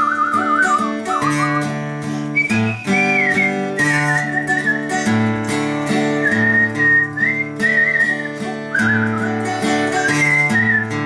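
Acoustic guitar strummed in a steady rhythm with changing chords, while a man whistles the melody over it, a single wavering line with vibrato.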